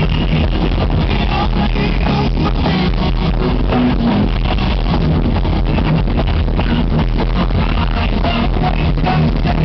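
Heavy metal band playing live, with guitars, bass and drums in one dense, unbroken wall of sound. It is heard from the crowd through an overloaded recording, so the sound is saturated and distorted.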